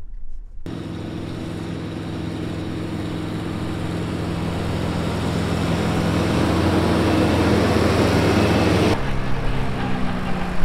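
John Deere tractor engine running steadily while pulling a hay mower-conditioner through the field, growing louder as it approaches. Near the end the sound changes abruptly to the tractor running close by.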